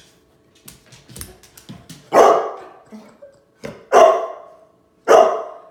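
A young silver Labrador barking: three loud single barks about a second apart, each trailing off with a short room echo, after a few faint clicks.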